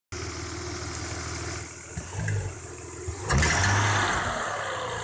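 Audi 3.0 V6 (BBJ) engine idling, with a small rev near two seconds in and a sharp throttle blip about three seconds in. A ringing knock comes with the sharp throttle, and the owner traced it to broken-off baffles inside the exhaust manifold on cylinder 1's side.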